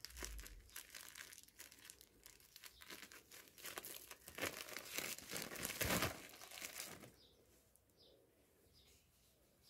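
Clear plastic packaging crinkling and tearing as it is pulled off a tightly wrapped mop head, loudest just before it stops about seven seconds in.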